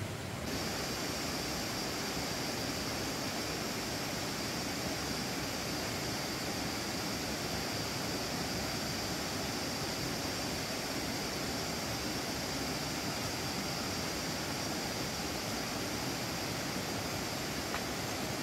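Tropical forest ambience: a constant high insect drone over a steady, even rushing noise.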